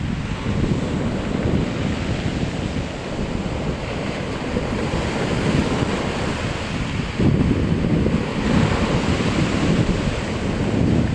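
Rough sea: waves surging and breaking in a continuous rushing wash that swells louder about seven seconds in. Wind buffets the microphone with a low rumble.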